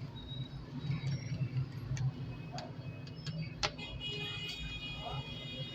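Scattered small sharp clicks and taps of hand tools on plastic and metal parts as a smartphone is taken apart, over a steady low hum. A faint high steady whine starts about four seconds in.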